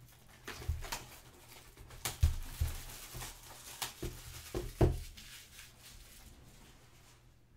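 Plastic shrink wrap crinkling and tearing as it is peeled off a sealed trading-card hobby box, with a few sharp knocks from the cardboard box being handled. It stops about five seconds in.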